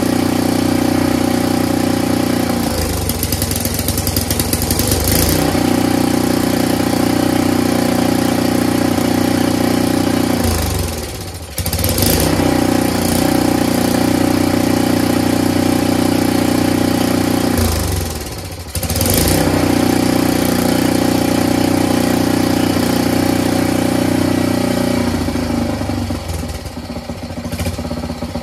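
Briggs & Stratton 6 HP Intek single-cylinder engine on a pressure washer running steadily at speed. About three times its speed drops sharply and climbs straight back within a second or two, and near the end it slows down toward idle.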